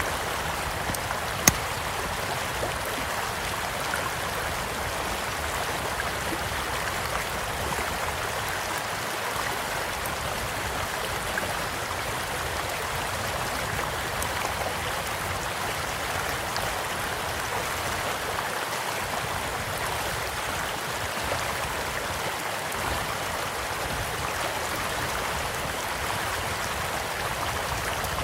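A small stream flowing steadily, with a few sharp pops from a crackling campfire; the loudest pop comes about one and a half seconds in.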